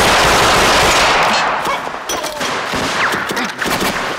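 Dense, continuous automatic gunfire at close range: submachine-gun bursts mixed with other shots in a firefight, loud and without a break.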